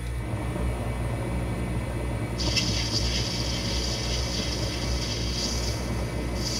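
Metal lathe running with a steady, slightly pulsing gear hum. About two and a half seconds in, a high hiss starts as the cutting tool takes a pass along the brass workpiece; it eases off near the end and then picks up again.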